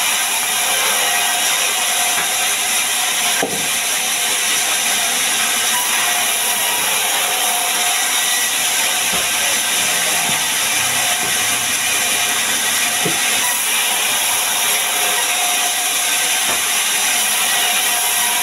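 Large sawmill band saw cutting lengthwise through a heavy timber log. It makes a steady, loud, hissing rasp of the blade in the wood, with the saw's machinery running underneath.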